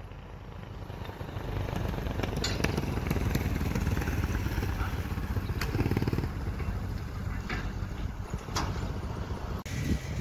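Small engine of a vehicle towing a cart trailer, passing close by with a fast low chugging. It grows louder from about a second in and is loudest around six seconds.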